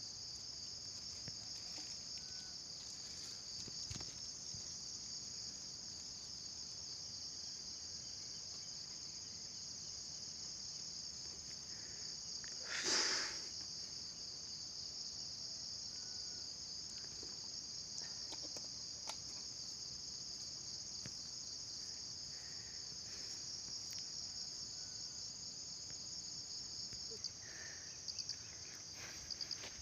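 Steady high-pitched insect chorus shrilling without a break, with a short rush of noise lasting about a second just under halfway through.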